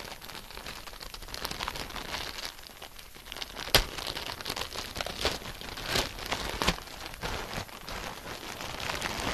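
Clear plastic wrapping crinkling and crackling as it is worked and torn open by hand, with a sharp snap a little under four seconds in.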